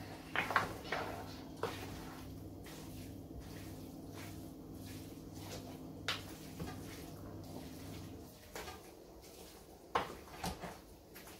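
Wooden spoon stirring a large aluminium pot of thick leafy vegetable soup, knocking sharply against the pot several times: a cluster of knocks in the first two seconds, one about six seconds in, and two near the end. Under it runs a steady low hum that stops about eight seconds in.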